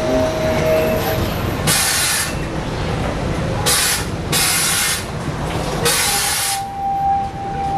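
Amusement-ride pneumatics at a loading station: four loud hisses of released compressed air, each under a second, over the low rumble of the ride train. A thin steady tone sounds at the start and another comes in near the end.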